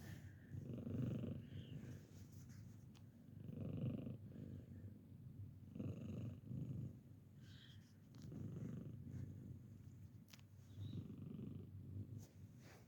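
Elderly tabby cat purring close to the microphone: a steady low rumble that swells and fades every two to three seconds.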